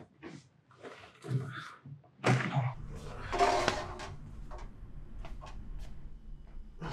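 A few short knocks and shuffles, then a louder door-like thunk a little over two seconds in, after which a steady low hum sets in.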